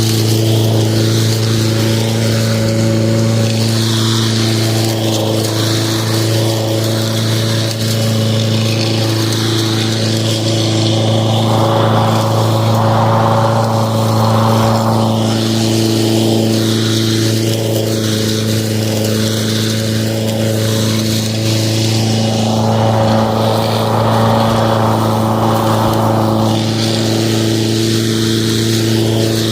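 Lawn mower running steadily with an even, unchanging hum. A rushing noise swells up twice for a few seconds each.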